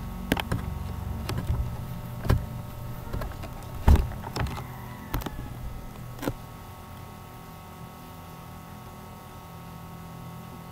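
A run of irregular knocks and bumps over the first six or seven seconds, the loudest about four seconds in, over a steady low hum that carries on alone afterwards.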